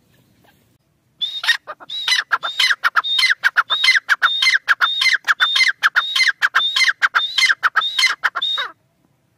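Grey francolin (teetar) calling: a long run of high, loud, repeated notes, about two a second, each a high note falling away in a downward slur. The run starts about a second in and cuts off abruptly near the end.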